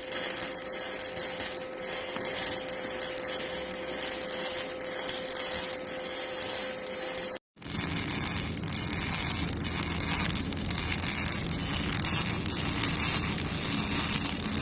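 Automated welding-carriage work on steel in two shots: a steady hiss with a constant tone, then, after a sudden cut about halfway, a denser crackling hiss.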